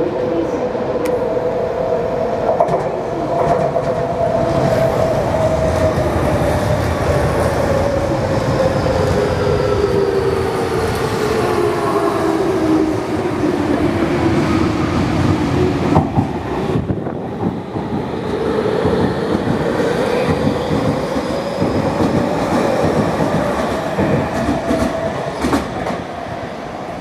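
An electric commuter train, a Toei 6300 series, running past close by. Its inverter-driven motors whine, sliding down in pitch, cutting out briefly about 16 seconds in, then rising again, over a steady rumble and wheels clacking over rail joints.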